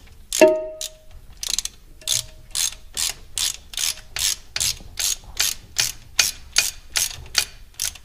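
Hand socket ratchet fitted with a 1/2-inch socket clicking in quick back-and-forth strokes, about three a second, as a timing chain cover bolt is run out. A short metallic clink rings about half a second in.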